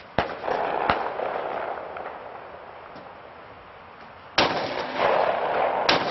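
Two pistol shots from a Kimber 5-inch 1911 in .40 cal firing BMT CQB rounds: a sharp report just after the start and a louder one about four seconds later, each followed within a second or so by another sharp crack and a lingering echo.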